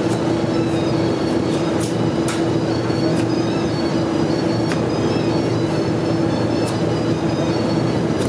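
A steady, loud machine hum with a constant drone, with a few sharp clicks scattered through it from a knife tapping a wooden chopping block while ginger is sliced.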